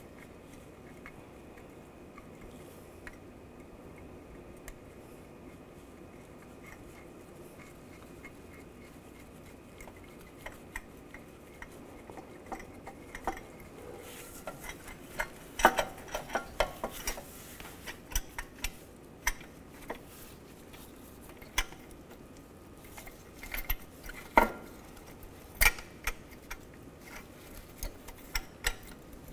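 Metal clinks and knocks from a steel catalytic converter and its exhaust clamp being handled and fitted against the exhaust manifold. The first part is quiet with only light ticks; about halfway in, scattered sharp clanks come more often and louder.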